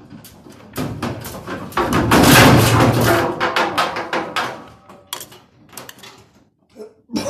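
Indesit washing machine banging and rattling as it jumps, the drum knocking on worn bearings. The knocking builds quickly to a dense racket, then thins out into scattered knocks.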